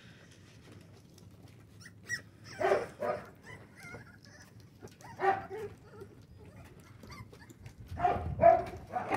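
American bully puppies, four weeks old, giving short barks: two about three seconds in, one around five seconds, and three close together near the end.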